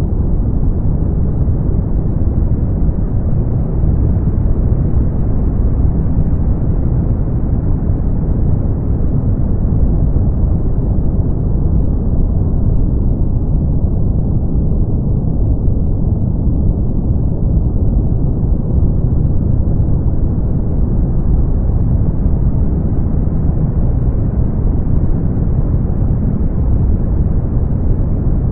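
Steady brown noise: a deep, muffled, even hiss with most of its energy low and little above about 2 kHz. It dulls slightly around the middle and brightens again later.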